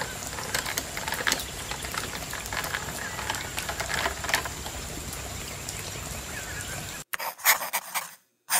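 A thick pink blended drink pouring into a glass: a steady splashing pour with many small bubbly crackles. It cuts off suddenly about seven seconds in, and a few short sound-effect blips follow.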